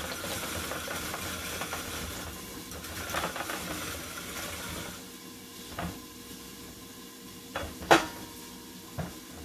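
Zucchini being grated in a hand-cranked Saladmaster food processor, the turning steel cone shredding it with a steady grating noise for about the first five seconds. Then it goes quieter, with a few light clicks and one sharp metal knock about eight seconds in.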